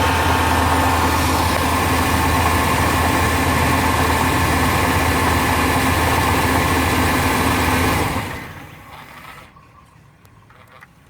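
1996 Chevrolet Tahoe's 5.7-litre V8 idling steadily, then switched off about eight seconds in, its sound dying away over about a second.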